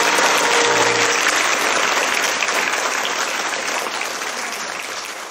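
Audience applauding, gradually fading away toward the end.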